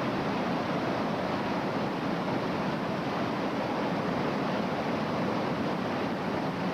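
Whitewater rapids rushing steadily, a constant hiss of churning river water.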